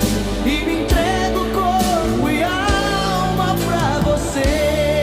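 Pop song: a singer holding long, gliding notes over a steady band accompaniment.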